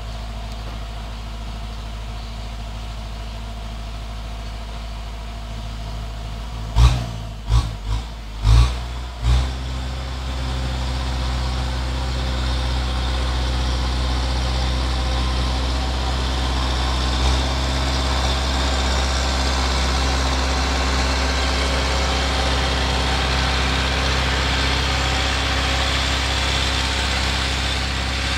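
Kubota tractor's diesel engine running steadily, growing louder about ten seconds in as the tractor comes close. A few seconds before that there is a quick cluster of sharp thumps.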